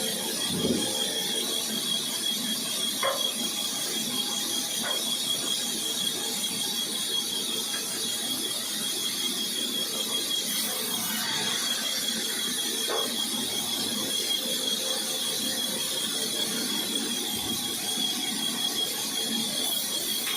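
Woodworking machine running steadily with a constant high-pitched whine over a hiss, with a few light knocks.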